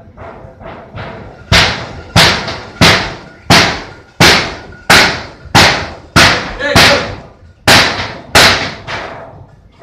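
A series of loud, sharp bangs in an even rhythm, about three every two seconds, each ringing out briefly. A few fainter bangs come first, and the beat skips once near the end.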